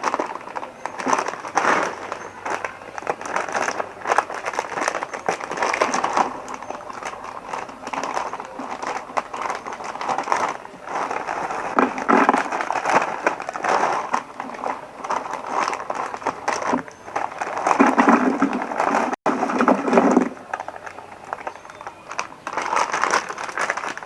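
A person eating close to the microphone: irregular chewing and crunching with crinkling and clicking mouth noises.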